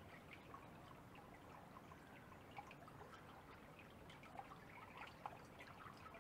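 Faint lapping and trickling of river water, with scattered small, irregular splashes.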